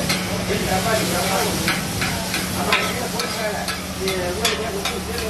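Steel spatulas knocking and scraping on a flat iron griddle as egg kothu parotta is chopped and mixed, with irregular metallic clinks about two or three times a second over a steady sizzle of frying.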